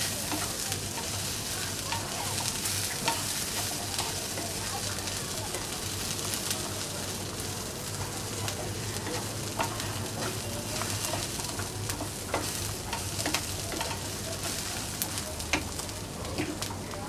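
Onion and whole spices frying in a little oil in a pan, a steady sizzle with scattered scrapes and clicks of a spatula stirring them.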